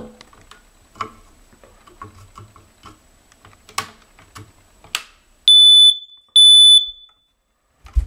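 A pencil taps and clicks against the test button of a ceiling smoke alarm. About five and a half seconds in, the alarm's horn sounds two loud, high-pitched beeps, each about half a second long, less than a second apart, before going quiet: a brief self-test sounding that is not held.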